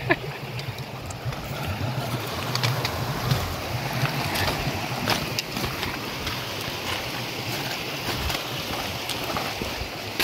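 Steady rush of a glacial meltwater stream, with footsteps crunching and a trekking pole clicking on loose moraine rock.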